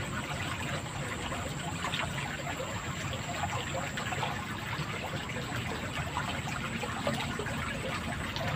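Water running steadily in a drainage ditch, a continuous trickling and splashing.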